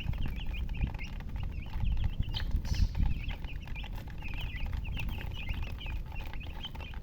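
A group of chicks peeping continuously, many short high chirps overlapping one another, over a low rumble that swells about two to three seconds in.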